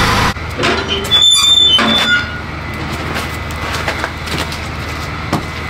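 Metal firebox door of an outdoor wood boiler squeaking open for about a second, followed by a steady rushing noise.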